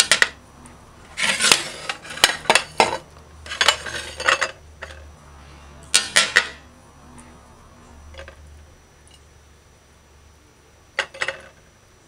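Dishes and utensils clinking and clattering in short bursts every second or two, with quieter gaps between.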